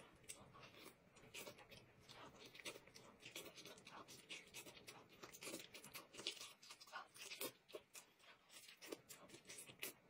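Faint close-up eating sounds of a person biting and chewing braised pork belly: many short, irregular mouth clicks and smacks.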